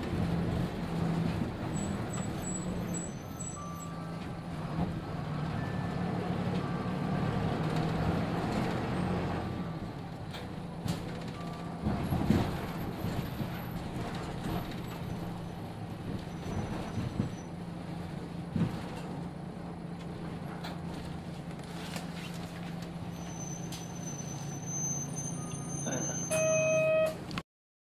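Diesel engine of a Nissan Diesel KK-RM250GAN city bus running with a steady low hum, heard from inside the bus, with a few clunks. A short electronic chime sounds near the end, just before the sound cuts off.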